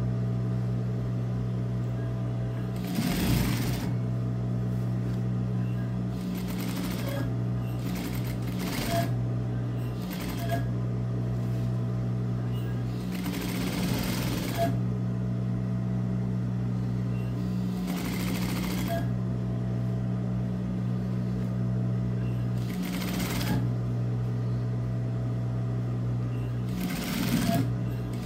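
Industrial sewing machine stitching in short runs, about seven of them, each lasting a second or so, over a steady low hum.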